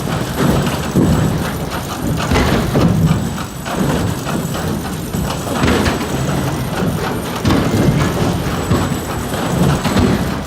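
Wood-processing machinery running, with repeated irregular thuds and knocks of logs being handled over a steady low rumble.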